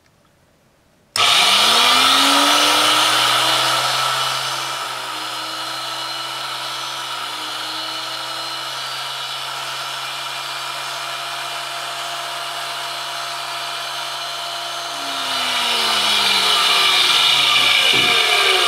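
Tool and cutter grinder's electric motor and 800-grit wheel switched on about a second in, rising in pitch as they spin up, then running steadily. The sound is louder for the first few seconds and again over the last few seconds.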